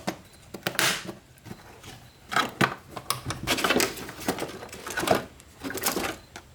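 Irregular clicks and plastic rattles of a car's fuse box cover being unclipped and handled, several bursts of clatter.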